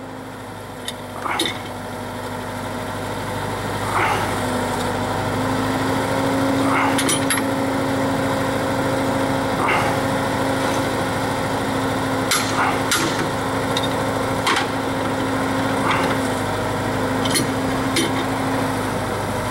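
Drill rig's engine running steadily, getting louder about four seconds in, with short sharp metal clanks every second or two as drill steel sections are taken out.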